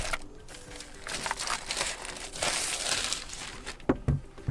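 Plastic packaging crinkling and rustling as the keyboard is unwrapped and handled, with a couple of short knocks near the end.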